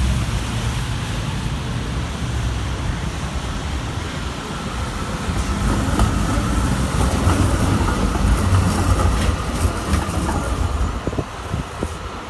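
A Zürich Tram 2000 rolling past on curved track: a low rumble of wheels on rail grows as it comes closest, with a faint steady whine and a few clacks over the rail joints and points, then falls away near the end.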